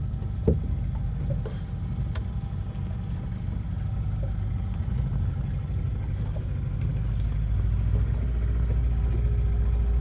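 Boat motor running steadily underway, heavy in the low end, with a single sharp knock about half a second in.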